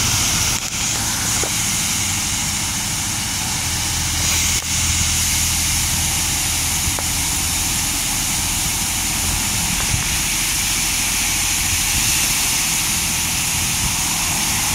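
Washworld High Velocity touchless car wash spraying the car with high-pressure water, a loud, steady hiss of spray over a low, even hum.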